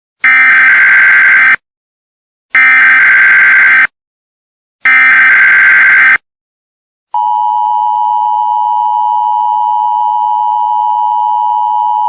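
Emergency Alert System SAME header: three bursts of buzzing digital data tones, each a little over a second long with a second of silence between them. About seven seconds in the steady two-tone EAS attention signal starts and holds.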